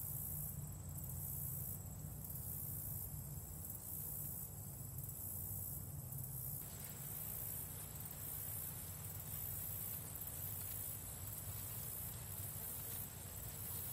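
Rural cornfield ambience on a summer afternoon: cicadas buzzing steadily at a high pitch over a low rumble of light wind. The sound grows a little fuller about halfway through.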